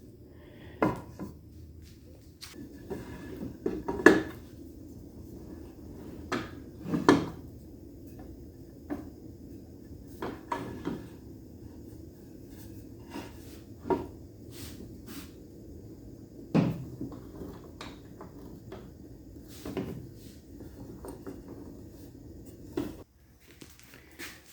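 Irregular wooden knocks and metal clicks as 2x4 boards are butted together at a corner and a Pittsburgh quick-release corner clamp is fitted and tightened on them, about a dozen handling sounds over a low steady hum.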